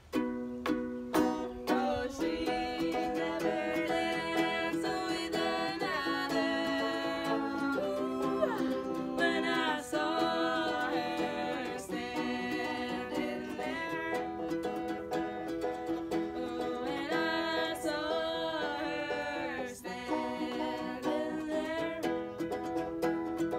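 Acoustic cover band: open-back banjo and a small acoustic guitar strummed together, with two young female voices singing.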